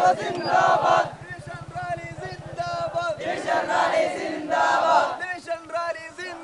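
A marching crowd of young men chanting slogans, loud group shouts in bursts with a single leading voice between them, call-and-response style.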